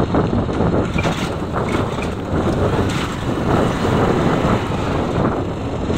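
Motorcycle tricycle's engine running and the rush of wind and road noise, heard from inside its sidecar as it rolls along.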